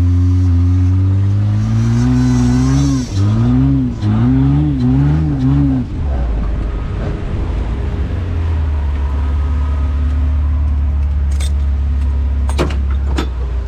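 Demolition derby van's engine revving: a held, slowly rising note, then four quick blips of the throttle, then a steady low-pitched run. A few sharp clicks come near the end.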